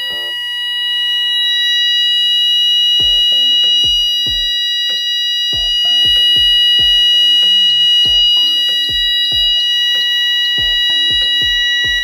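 Steady, high-pitched electronic alarm tone from a Siemens fire alarm system in alarm, triggered by a manual call point, sounding continuously. Background music with a regular beat plays over it.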